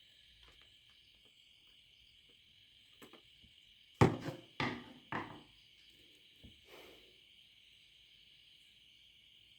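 A handful of sharp knocks and clatters of hard objects being handled and set down on a work surface, the loudest about four seconds in, followed by three quicker ones and two faint taps. A steady high hiss runs underneath.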